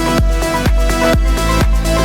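Electronic dance music with a steady kick drum on every beat, about two beats a second, under sustained synth chords.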